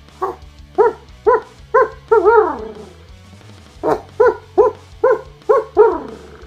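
A man's natural-voice animal call: a run of short barking yips, each arching in pitch, in two groups of five and six, each group ending on a longer call that slides down. Guitar music plays underneath.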